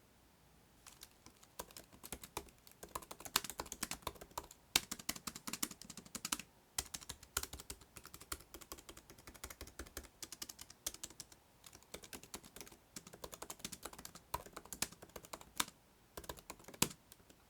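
Typing on the built-in scissor-switch keyboard of a 2020 13-inch MacBook Pro: a quick run of light key clicks starting about a second in, with short pauses, and a few louder strokes.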